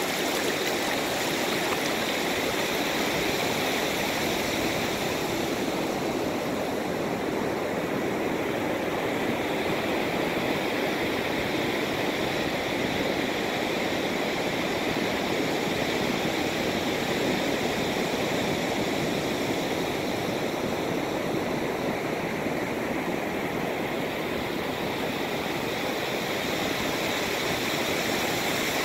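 Ocean surf washing in over wet sand close by: a steady rush of water with no separate crashes standing out.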